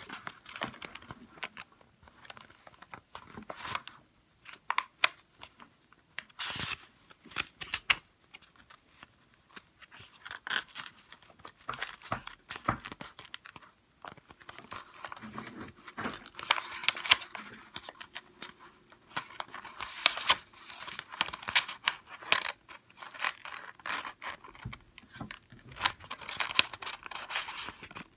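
A sheet of white paper rustling and crinkling in irregular bursts as it is rolled into a tube by hand on a tabletop.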